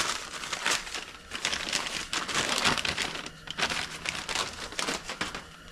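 Crinkling and rustling of a small parcel's packaging being opened and handled by hand, in irregular crackles.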